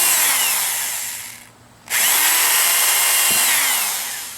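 Power drill pre-drilling holes through cut pieces of rain gutter. It runs, then winds down as the trigger is released. About two seconds in it spins up again for a second short run, then winds down once more.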